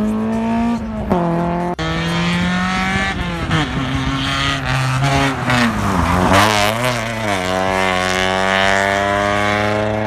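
Racing car engine at high revs under hard acceleration, changing gear: the pitch climbs, falls at each shift, dips and wavers in the middle, then climbs steadily again near the end.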